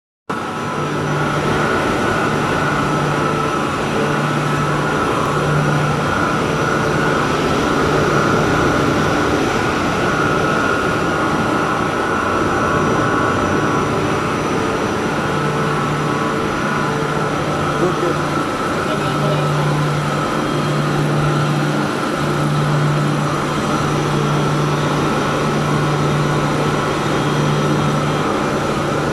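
Chilled-water pump machinery running: a steady mechanical hum with a higher whine over it, and a low hum that drops in and out every second or two.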